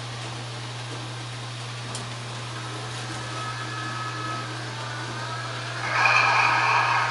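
Model railway locomotive running on the layout, its sound growing steadily over a constant low hum. About six seconds in it jumps into a louder rush of sound with a high ringing tone.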